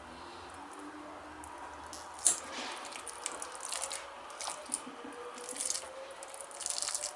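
Metal fork mashing ripe avocado in a glass bowl: irregular wet squishing and scraping, with one sharp clink of the fork on the glass about two seconds in.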